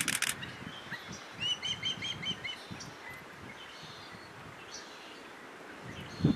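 Osprey calling: a quick run of about seven short, high whistled chirps a second and a half in, the fledgling begging for food. A brief sharp sound comes at the very start.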